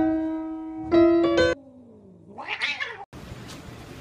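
Sustained keyboard notes ringing, with a fresh chord struck about a second in, then cut off. After a brief pause, a short cat-like yowl that dips and then rises sharply in pitch, followed by a steady hiss of background noise.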